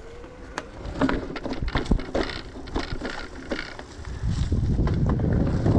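Polygon Siskiu T6E electric mountain bike rattling over rocky ground: a run of sharp knocks and clatters as the tyres, chain and frame hit rocks. A low wind rumble on the helmet camera's microphone grows louder about two-thirds of the way in.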